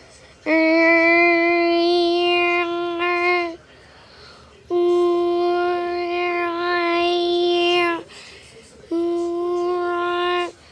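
A child's voice imitating a tornado siren: three long held wailing notes of about three, three and two seconds, each starting and stopping abruptly, with short breaks between.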